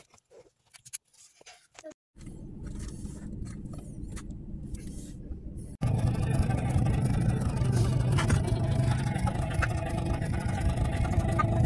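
A few light clicks as a child's car-seat harness is buckled, then a car running, heard from inside the cabin: a steady low rumble of engine and road noise that becomes louder about six seconds in as the car drives.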